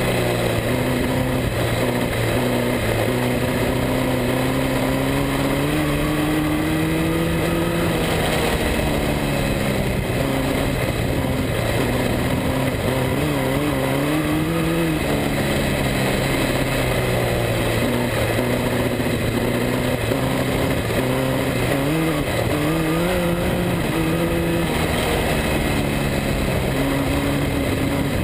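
A speedway midget car's engine heard from on board while it laps a dirt track, running hard with its pitch rising and falling over and over as it goes round.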